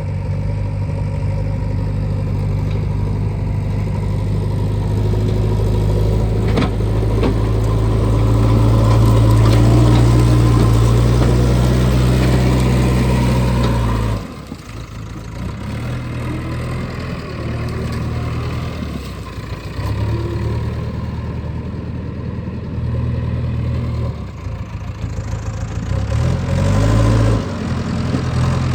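Heavy diesel engine running under changing load. It grows louder to a peak about ten seconds in, drops off sharply around fourteen seconds, then rises and falls, with a brief rev up and down near the end.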